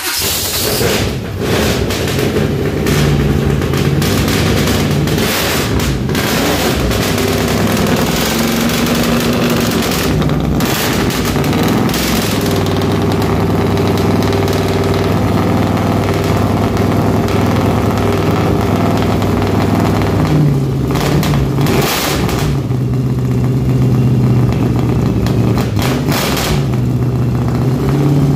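Small-block Chevy 383 stroker V8 running just after a cold start, its pitch stepping up and down a few times with the throttle.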